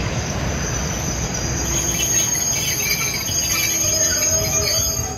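Freight train of silo tank wagons rolling past, a low rumble of wheels on rail under a steady high-pitched wheel squeal, with shorter squeals coming and going in the second half.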